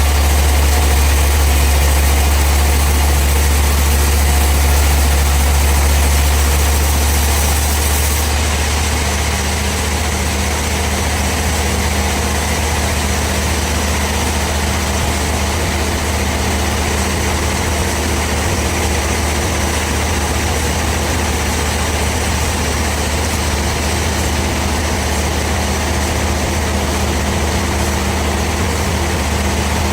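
Sawmill machinery running steadily with a strong, deep hum and steady tones above it; a high hiss drops away about eight seconds in.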